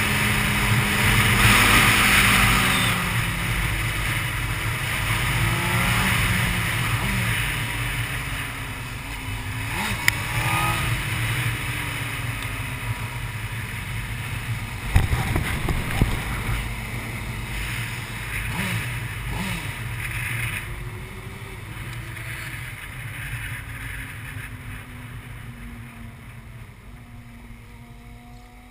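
Honda CBR600 inline-four engine heard from onboard with wind rushing past, slowing down: the engine pitch falls in several glides as the bike sheds speed, then runs low and steady at pit-lane pace, getting quieter toward the end.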